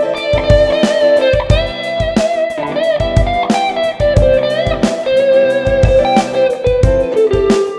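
Strat-style electric guitar played through a Zoom G1Four multi-effects pedal: a lead line of sustained notes, some bent up and down, over a steady beat.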